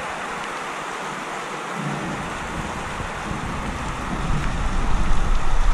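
Heavy rain pouring steadily during a thunderstorm, with a deep rumble of thunder coming in about two seconds in and growing louder toward the end.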